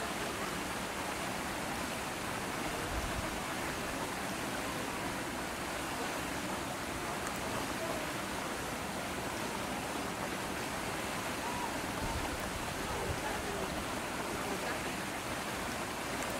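Steady, even hiss of outdoor background noise, with faint brief high sounds here and there.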